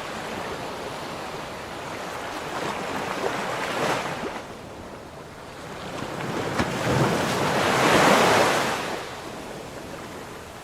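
Sea waves breaking and washing in: two swells of surf, the second and louder one about eight seconds in, then fading away.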